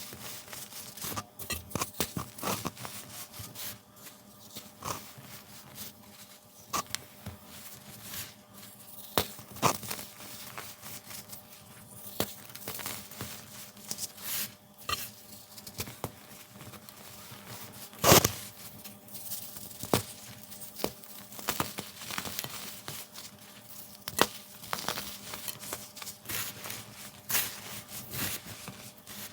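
Baked baking soda being crushed, giving a quick, irregular run of dry crunches and crackles, with one louder crunch about eighteen seconds in.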